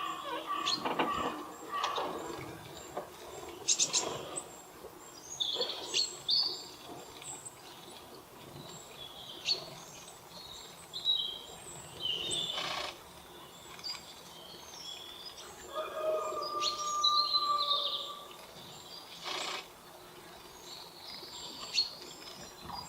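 Small wild birds chirping, with many short, high calls scattered throughout. A few brief sharp noises break in, and a steadier, lower tone lasts about two seconds a little past the middle.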